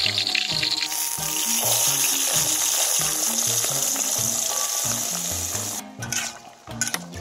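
Hot fat sizzling and bubbling in a wok, a loud steady hiss that cuts off abruptly near six seconds in, followed by a few light clinks. Background music with a steady bass beat runs underneath.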